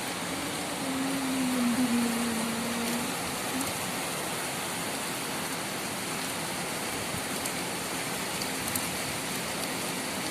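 Heavy rain pouring down steadily as an even hiss. About a second in, a low hum sounds for about two seconds over the rain, dipping slightly in pitch partway through.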